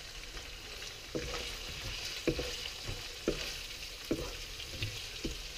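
Prawns, onion and fish cake sizzling in oil in a wok, with a steady hiss, while a wooden spatula stirs them, knocking and scraping against the pan about five times, roughly once a second.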